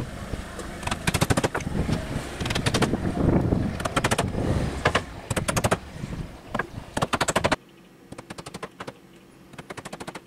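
Claw hammer driving nails into the timber roof boards, in quick bursts of several strikes each. A low rumble runs underneath and cuts off suddenly about seven and a half seconds in.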